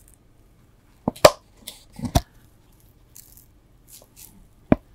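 Close-up handling sounds from hands working a magnetic-lid bracelet gift box: a few sharp clicks and taps, the loudest pair just over a second in, two more around two seconds in and one near the end.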